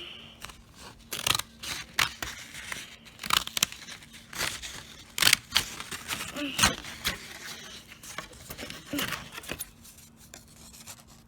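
Scissors cutting construction paper: irregular snips, several close together at times with short pauses between, along with the rustle of the paper being turned.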